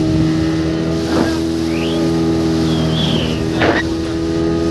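Motorboat engine running with a steady hum, heard on board. Two brief sharp sounds cut through it, about a second in and again past the middle.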